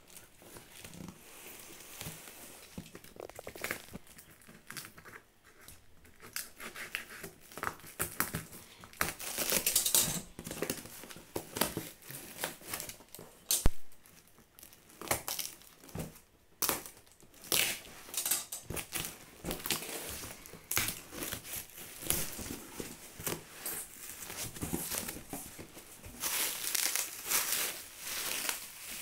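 Packing tape being pulled and torn off a cardboard box and the cardboard flaps handled, an irregular run of crackling and rustling, with one sharp snap about halfway through. Near the end, plastic bubble wrap crinkles as it is uncovered.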